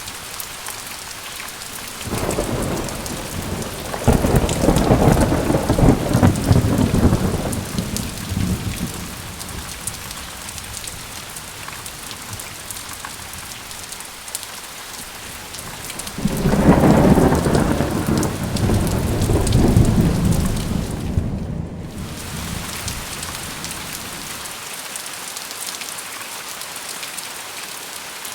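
Steady rain with two long rolls of thunder, the first starting about two seconds in and the second about midway, each rumbling for several seconds before fading back into the rain.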